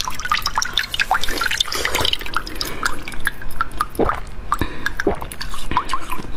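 Water dripping: many quick, irregular drops plinking into water, some with a little falling pitch.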